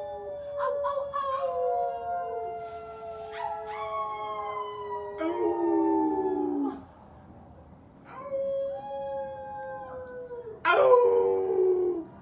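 Several people howling like wolves: long, overlapping howls that slide down in pitch. They die away briefly about seven seconds in, then a louder, harsher howl joins near the end.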